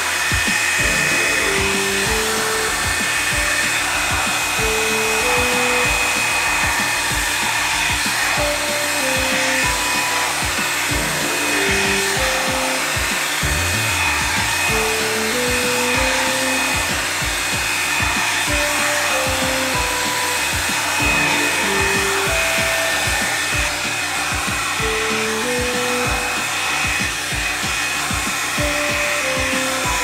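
Background music with a steady beat and a simple melody, over the constant whoosh and thin whine of a Revlon One-Step hair dryer brush running on its low heat setting.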